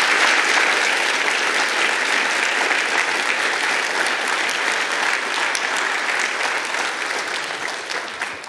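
Audience applauding, a dense steady clapping that eases off a little near the end.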